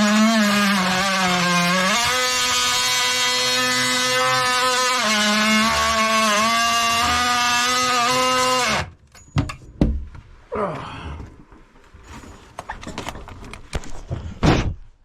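Power saw cutting through the old sink fitting, its motor pitch sagging under load and recovering. It stops abruptly about nine seconds in, followed by scattered knocks and clatter and one sharp knock near the end.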